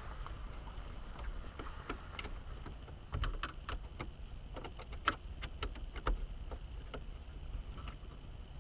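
Light clicks and taps of small plastic and metal parts being handled and fitted by hand in an opened van steering column, irregular and thickest in the middle, over a steady low rumble.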